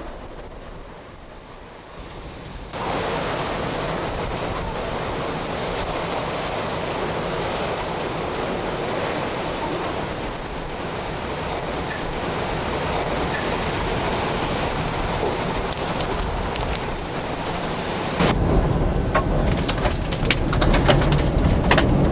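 Hurricane wind and driving rain: a steady, heavy rushing hiss. Near the end it grows louder, with a deep rumble and crackling.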